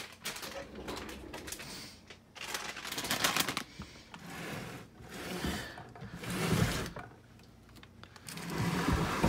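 Handling noise in several separate stretches about a second long: rustling and light clicking and rattling, as of a phone and small objects on a nightstand being moved about.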